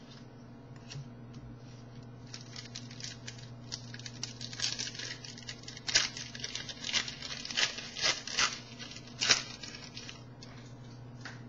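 Trading card pack wrapper being torn open and crinkled, a rapid, irregular crackling with several louder rips and crunches between about six and nine seconds in.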